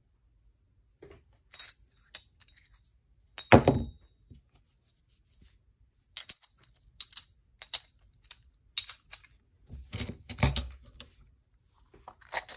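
One-ounce silver American Silver Eagle coins clinking against each other as they are handled in gloved hands: scattered single clicks, a heavier knock about three and a half seconds in that is the loudest, then a quicker run of bright metallic clinks. Near the end a scraping rustle as the coins are fed into a plastic coin tube.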